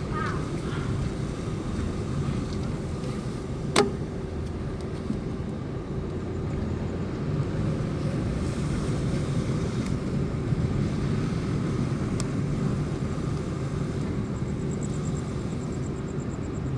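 Chevrolet Celta VHC-E's four-cylinder engine running through its original stock exhaust while driving, a steady low drone. A sharp click about four seconds in stands out above it.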